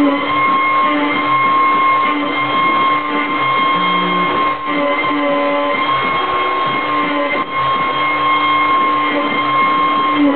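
CNC router at work milling wood: the spindle's steady high whine, with the stepper motors sounding short lower notes that change pitch every half second or so as the axes move.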